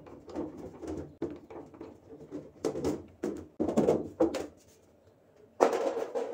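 Screwdriver on the screws and sheet-metal rear panel of a Samsung top-loading washing machine, then the panel knocking and rattling as it is worked loose and lifted off, with a louder scraping clatter near the end as it comes away.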